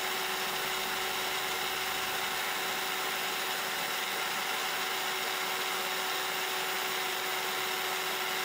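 SilverCrest SSM 180 A1 smoothie maker's motor running at speed with an empty jar, unloaded: a steady whine over a rushing whir.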